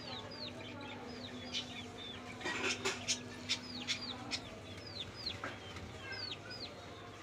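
Birds chirping over and over, each call a short note falling in pitch, with a cluster of sharp clicks from a little past two seconds in until about four seconds in.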